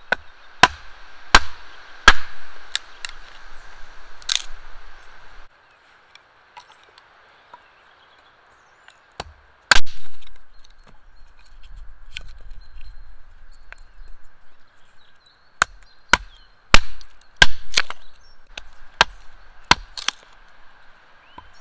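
Hatchet splitting firewood into kindling on a wooden stump chopping block: the blade is set in the wood and the two are knocked down together onto the block, giving sharp knocks of wood and steel. There are about six knocks at the start, a lull, one loud knock near the middle, and a quick run of about nine knocks near the end.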